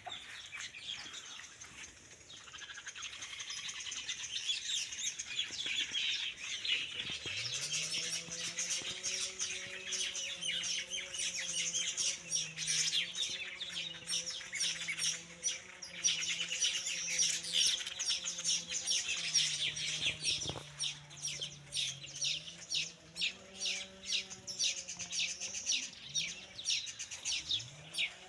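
Weaver birds chattering as a colony: a dense, continuous mass of rapid, overlapping high chirps. Beneath them, a low wavering hum sets in about seven seconds in.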